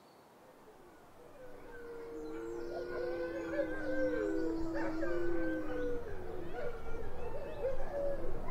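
A chorus of wolfdogs howling: several long howls overlap, some holding steady and others wavering. The sound fades in over the first couple of seconds.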